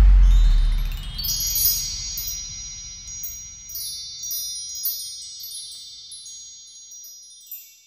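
The deep low rumble of a final bass hit fades out over the first second. Then wind chimes shimmer, with many high ringing tones struck again and again and slowly dying away.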